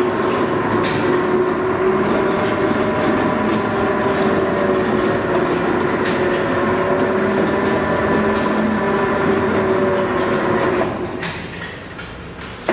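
Plastic pipe coiler machinery running: a steady mechanical drone carrying several held whining tones that waver slightly in pitch. The sound falls away about two seconds before the end, then cuts back in abruptly.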